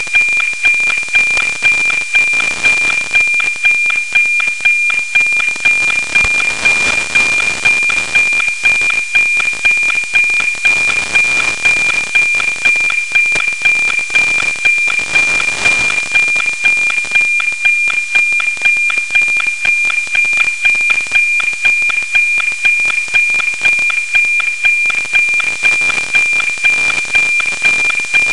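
NOAA 19 weather satellite APT signal, FM-demodulated by a software-defined radio: a steady high tone ticking about twice a second, the image-line rhythm, buried in heavy static hiss. The hiss marks a weak signal on a low pass.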